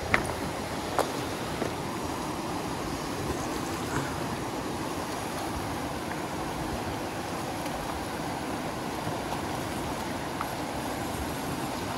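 Steady rushing of river rapids, with a couple of short sharp clicks in the first second.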